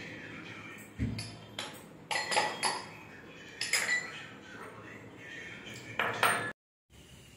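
Metal spoon clinking against a glass of drink as it is stirred and scooped: a string of irregular, sharp clinks with a short ring, bunched a few at a time.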